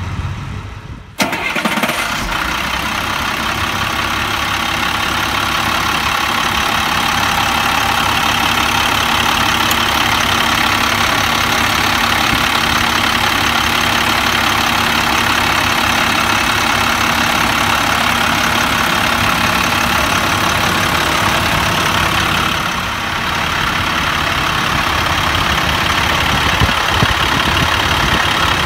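International DT466 inline-six turbo diesel idling steadily, heard close up at the open engine bay. It cuts in suddenly about a second in, after a quieter, duller stretch.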